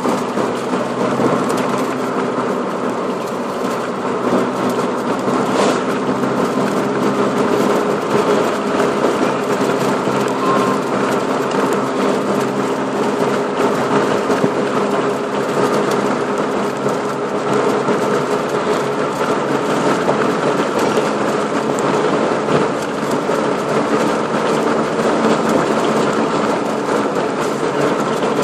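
Car engine and tyre noise heard from inside the cabin while cruising along a road: a steady hum with a low drone of road noise beneath.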